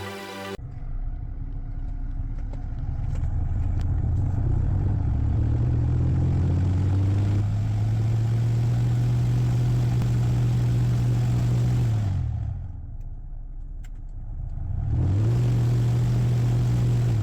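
BMW F10 528i's climate-control blower motor spinning up to a steady low hum with air rushing, winding down and stopping about twelve seconds in, then starting up again near the end. This is the blower noise that the title puts down to a corroded A/C cabin filter.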